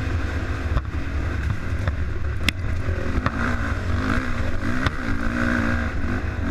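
Dirt bike engine running on the throttle, its pitch rising and falling, with heavy wind buffeting on a helmet-mounted microphone. A few sharp ticks sound over it.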